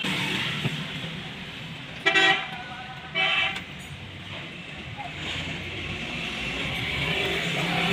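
Vehicle horn sounding two short toots about a second apart, over steady background noise.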